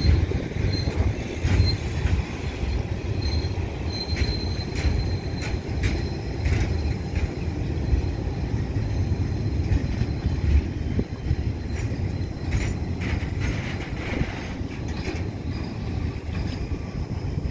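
Container freight wagons rolling past on the rails: a steady low rumble of steel wheels on track with irregular clicks and knocks, and a faint thin wheel squeal that comes and goes, held for a couple of seconds about four seconds in.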